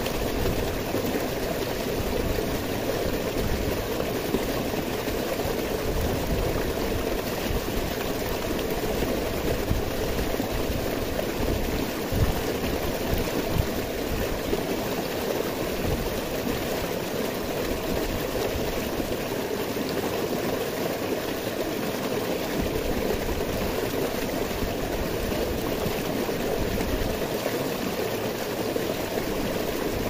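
Small rocky stream tumbling over boulders: a steady splashing rush of water.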